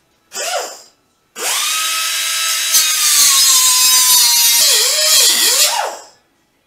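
Handheld power tool run in a short trigger blip, then run steadily for about five seconds with its motor whine sagging slightly under load and a rattle added partway through, slowing and picking up a few times near the end before it stops.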